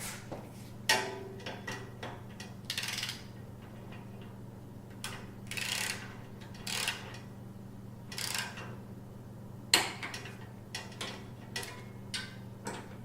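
Ratchet wrench working the floorboard bracket bolts: bursts of short raspy ratcheting strokes and scattered metal clicks, with two sharp loud clicks, about a second in and near ten seconds, as the bolts are tightened toward 18 foot-pounds.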